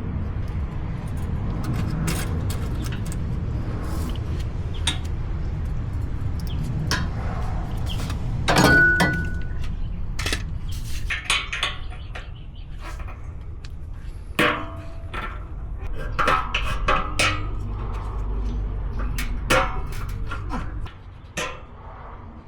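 Metal tools and exhaust hardware clinking and knocking at irregular intervals during a cat-back exhaust install, with one louder knock about nine seconds in, over a steady low rumble that stops near the end.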